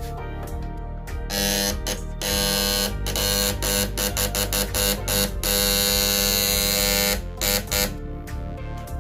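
Harsh electrical buzz from a homemade inverter driving a microwave transformer, switching on and off in short bursts, then held for about two seconds before a couple of last short bursts. Background music plays underneath.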